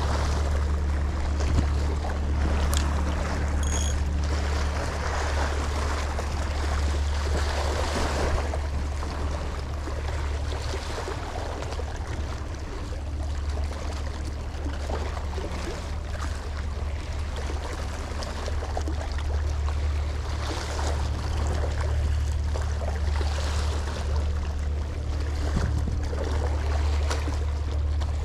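Small waves lapping and washing against a rocky seawall, swelling and fading, over a steady low hum.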